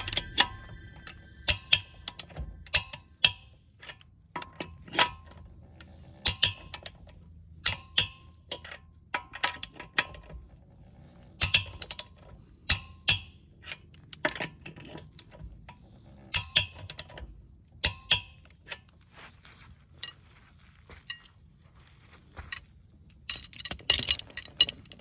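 A ratcheting torque wrench tightening wheel lug nuts: sharp metallic clicks, single and in short runs about every second, with a denser cluster of clicks and clinks near the end.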